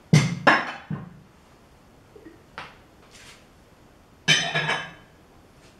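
Glass bowls and kitchen utensils knocked and set down on a table: a few sharp knocks and clinks in the first second, a faint click midway, and another louder clattering clink with a brief ring about four seconds in.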